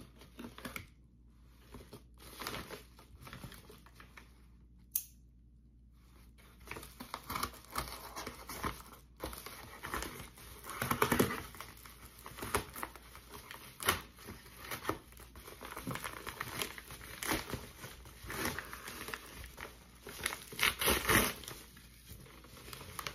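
Yellow paper padded mailer being slit with a knife and torn open by hand, the paper crinkling and ripping. Quiet for the first several seconds, then irregular crinkles and tears from about six seconds in, the loudest rips around the middle and near the end.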